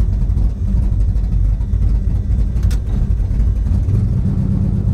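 The OBS drag truck's engine running steadily, heard from inside its stripped, caged cab, with a brief click about two and a half seconds in.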